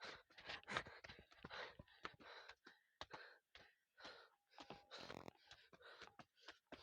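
Faint, choppy breathing of a person climbing a steep hill path, short breaths coming and going with gaps between.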